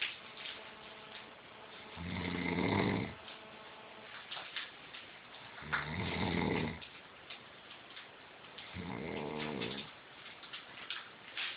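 A dog snoring: three snores, each about a second long, coming roughly every three and a half seconds.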